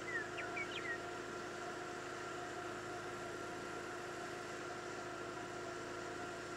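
Steady mechanical hum from a running motor, with a few short high chirps in the first second.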